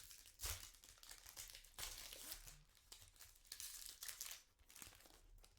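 Crinkling and rustling of a foil trading-card pack wrapper being torn open and handled, in short irregular bursts.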